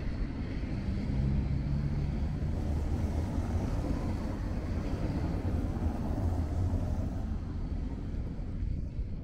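Traffic on a rain-wet city street: cars driving past with tyre noise on the wet road, over a steady low rumble.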